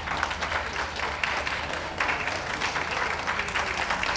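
Audience applauding: steady clapping of many hands, a little louder from about halfway.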